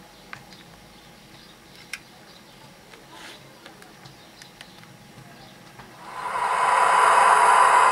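Sound decoder of an HO-scale CFR EA 060 electric locomotive model, played through its small speaker: a few faint clicks, then about six seconds in a loud hissing whir with a steady whine builds up over about a second and holds, like the locomotive's cooling blowers spinning up.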